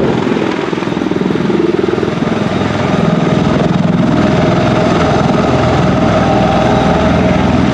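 Bell Boeing MV-22 Osprey tiltrotor running on the ground with both proprotors turning in helicopter mode: a loud, steady rotor and turboshaft noise with a rapid beat from the blades. A whining tone comes in about halfway through.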